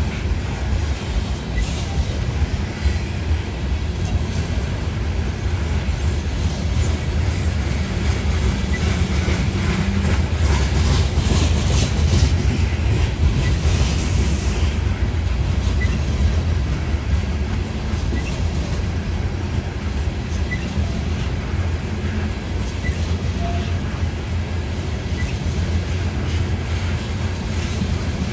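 Coal hopper cars of a CSX freight train rolling past: a steady low rumble of steel wheels on rail, a little louder around the middle.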